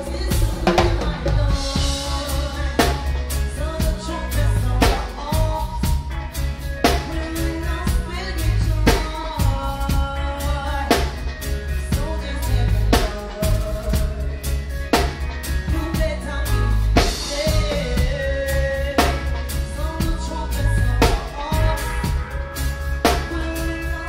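Live reggae band playing, heard from on stage right beside the drum kit: drums with rimshot hits up front, a strong drum hit about every two seconds, over a heavy, steady bass line.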